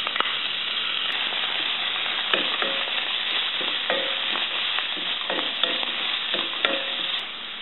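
Oil sizzling steadily in a nonstick frying pan as damp, rinsed dry coconut, peanuts, green chili and ginger fry in it. From about two seconds in, a wooden spatula stirs them, scraping and knocking the pan in short strokes.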